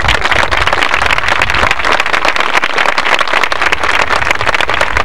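Crowd applauding: a dense, steady patter of many hands clapping.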